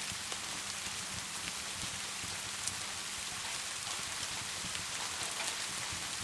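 Crackling wood fire over a steady rain-like hiss, with scattered small ticks and one sharper pop a little before the middle.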